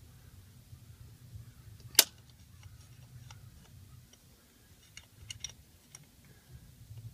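Small clicks and taps of hand work with tools at the John Deere 6400's rear PTO shaft housing, with one sharp, loud click about two seconds in and a cluster of lighter clicks near the end. Under it runs a low rumble of wind on the microphone.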